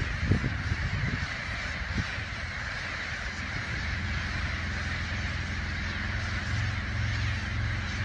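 A large flock of birds calling together overhead, a steady dense chatter of many voices.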